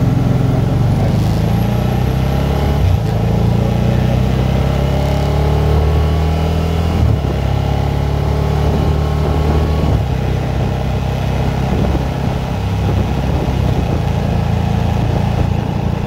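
Can-Am three-wheeled motorcycle's engine running under way. It climbs in pitch and drops back about three and again about seven seconds in, as if shifting up, then runs steadier and eases off toward the end.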